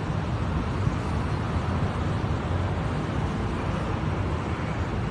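Steady low outdoor rumble of background noise, with no distinct events.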